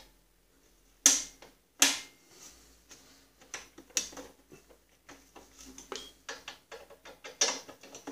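Hand tools and bolts clacking against the steel fender and frame of a Snapper rear-engine rider mower while fender bolts are started: two sharp metallic clacks about a second in, then a run of light, irregular clicks and taps.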